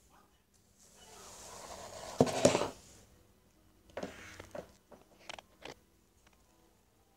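Rubbing and knocking on a phone's microphone as a cat nuzzles it at close range: a rustle builds for about a second, then comes a burst of sharp knocks, then a few lighter taps.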